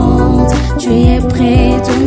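Background gospel music with a steady beat: held keyboard chords over kick drum and cymbals.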